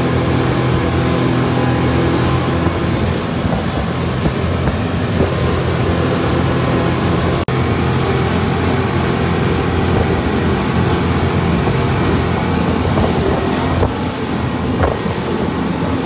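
Motorboat running at speed: a steady engine drone under the rush of churning wake water, with wind buffeting the microphone. The sound drops out for an instant about halfway through, then the same engine and water noise carries on.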